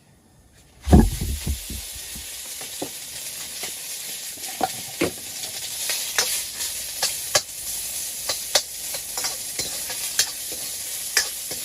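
Food hitting hot oil in a pan about a second in with a sudden loud sizzle, then stir-frying: a steady sizzle with the irregular clicks and scrapes of a spatula against the pan.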